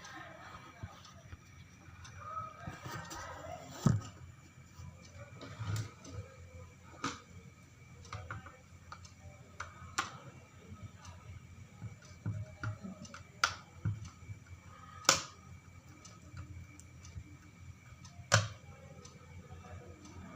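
Irregular sharp clicks and knocks, as of hard plastic and metal parts of a room heater being handled, over a faint steady hum with a thin high whine.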